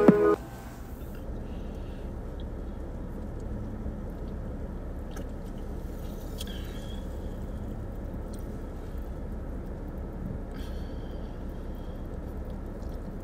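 A person eating in a car: quiet chewing and small scattered clicks over a steady low rumble of the car's cabin.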